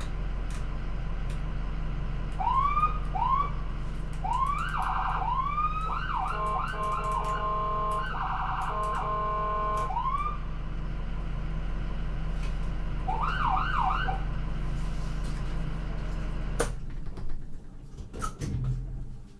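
Ambulance siren giving short rising whoops, then a few seconds of steady blaring tone and more whoops, over the steady drone of the vehicle's engine. About three-quarters of the way through the engine cuts off, leaving a few clicks and knocks.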